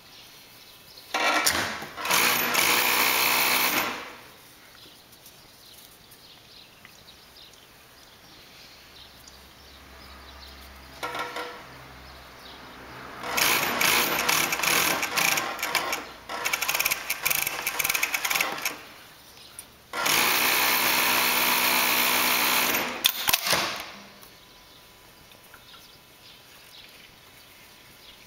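Brother FD4-B277 three-needle coverstitch industrial sewing machine running at speed while stitching fabric, in four or five runs of one to four seconds each, stopping in between.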